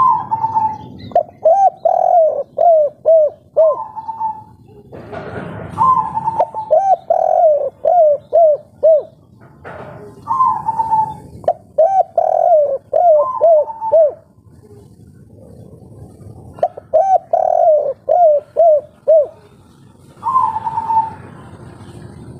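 Spotted dove cooing its 'kuk 3' song: phrase after phrase, each a drawn-out higher opening note followed by a quick run of five or six lower, rounded coos.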